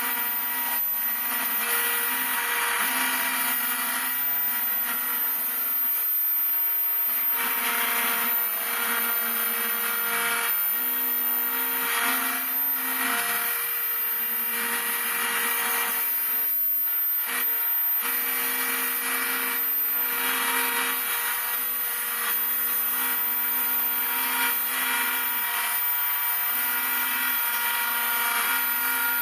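Homemade CNC router milling model-aircraft wing ribs. A constant high whine from the spindle runs under a cutting noise that swells and fades, while lower motor tones step up and down in pitch and stop and start as the axes move.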